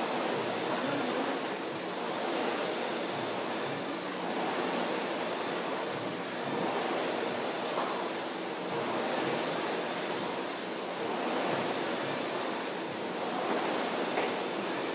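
Air-resistance flywheel fan of a Concept2 indoor rowing machine whooshing under a steady rowing pace, surging with each drive stroke about once every two seconds.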